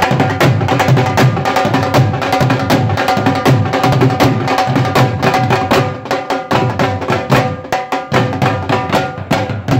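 Punjabi dhol drumming in a fast, dense rhythm, with a steady held melody behind it. The playing drops in loudness for a moment about six seconds in, then picks up again.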